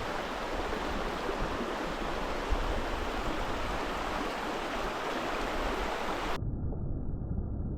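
Creek water rushing steadily over riffles. About six seconds in the sound cuts off abruptly into a dull low rumble with the highs gone.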